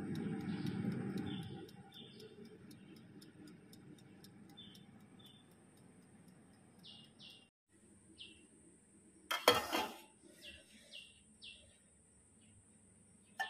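Birds chirping in short, falling calls, over the steady ticking of an air fryer's wind-up timer for the first half, about four ticks a second. A low rumble of handling in the first two seconds, and one sharp knock about nine and a half seconds in.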